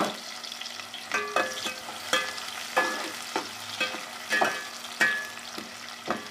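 Sliced onions sizzling in hot ghee in a steel pot, being fried to light brown, while a metal spatula stirs them, scraping and clinking against the pot about every two-thirds of a second.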